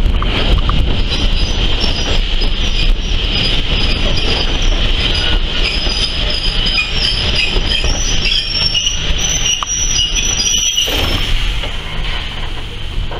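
Heritage steam railway train running slowly along a platform: low rumble from the running gear under high, wavering squeals from the carriage wheels on the rails.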